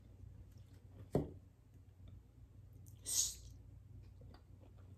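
Quiet pause over a faint low hum, broken by one sharp knock about a second in and a short hissing breath around three seconds in.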